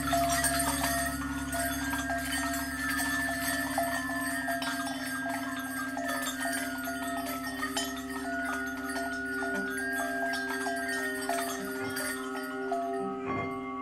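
Improvised ambient percussion: a steady low drone under a dense shimmer of small metallic chimes and bell-like tones that ring briefly and overlap.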